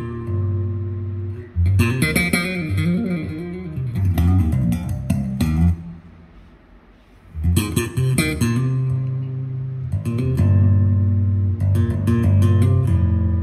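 Music with bass and guitar played through a Marshall Emberton II portable Bluetooth speaker during a listening test. It falls away to a quiet stretch about six seconds in, then comes back.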